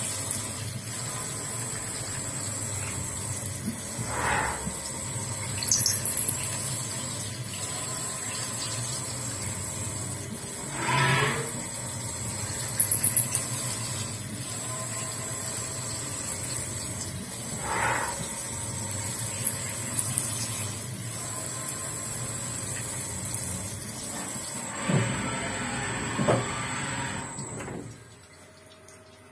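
CNC mill rigid peck tapping an M14x2 thread under flood coolant: a steady hiss of coolant spraying over a constant high machine whine, with a brief swell in the spindle sound about every seven seconds as each peck goes in and reverses out. Near the end the coolant and spindle stop and the level drops.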